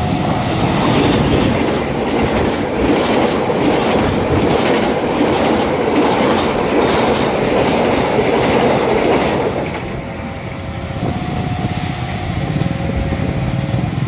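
Diesel-hauled express passenger train passing close by at high speed: a loud rumble with a rapid clickety-clack of wheels over the rail joints. It dies away about ten seconds in as the last coach goes by.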